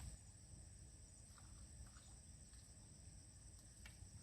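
Near silence: faint outdoor background with a steady high-pitched hiss and a few faint ticks.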